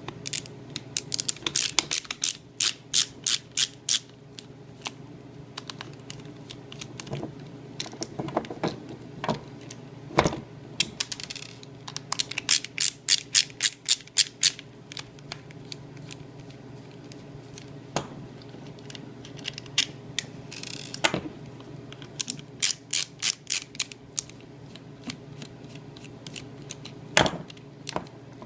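Ratchet driver clicking in several quick runs of sharp, evenly spaced clicks, about six a second, as the screws holding the refrigerator fan motor's housing together are backed out. A few single knocks come between the runs.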